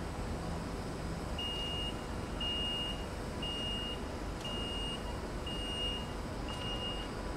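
Door-closing warning beeper on a Zentralbahn Stadler Class 130 electric unit: six short, steady high-pitched beeps about a second apart as the door closes, over steady background noise, with a couple of light clicks near the end.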